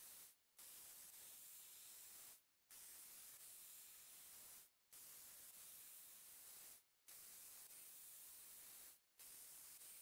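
Near silence: a faint steady hiss that drops out briefly about every two seconds.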